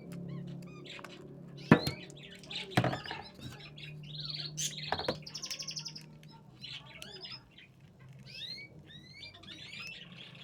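Birds chirping over and over, with a sharp knock about two seconds in and another near three seconds, and a low steady hum underneath early on.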